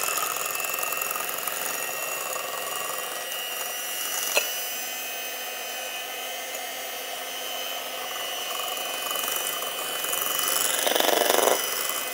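Electric hand mixer running steadily with a high motor whine, its beaters whisking eggs and sugar in a glass bowl. There is a single sharp tick about four seconds in and a brief louder swell near the end.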